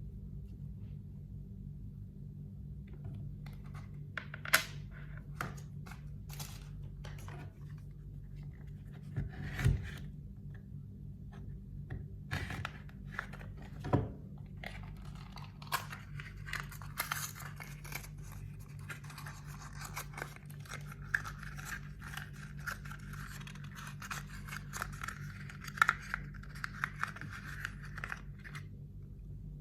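Packaging being handled and opened: irregular clicks, rustling and scraping with a few louder knocks, growing busier about halfway through.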